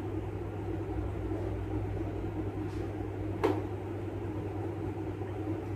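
Steady low hum with a single sharp clink about three and a half seconds in, as a miniature glass liquor bottle is set down among others on a wooden tray.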